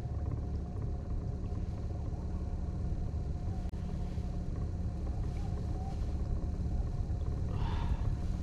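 Boat motor running steadily at trolling speed, a low, even hum.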